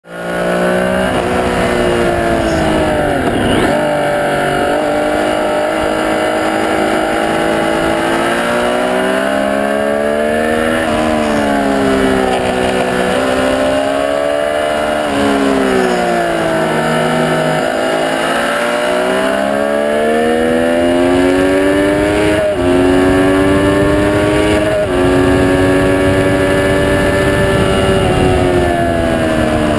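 Sport motorcycle engine heard from an onboard camera at speed on a race track, the revs climbing and falling through the corners and stepping with gear changes.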